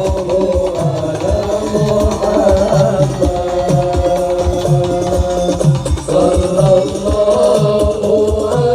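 Music with a singing voice and a heavy bass beat about twice a second, played loud through a large "sound horeg" sound system.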